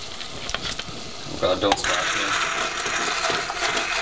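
Immersion blender switched on about two seconds in, after a few light knocks. Its motor then runs steadily with a high whine as the blade churns and froths the hot corn chowder in the pot.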